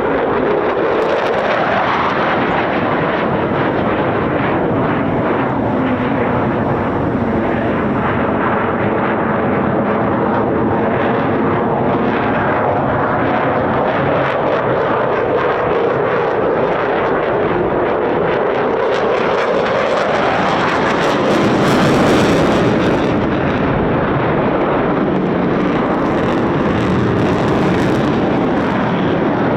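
Eurofighter Typhoon jet's twin turbofan engines at display power, a continuous loud roar whose pitch bends down and up as the jet passes and turns. It swells loudest a little past two-thirds of the way through.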